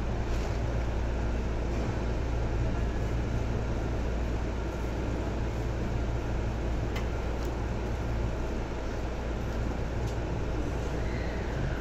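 Seibu 2000 series electric commuter train running at speed, heard from inside the car: a steady, deep rumble of wheels on rail, with a few sharp clicks.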